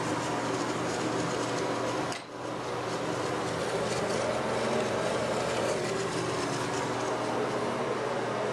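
Gerber Ultra Flush pressure-assist toilet tank refilling: a steady hiss of water running through the fill valve into the pressure vessel, dipping briefly about two seconds in.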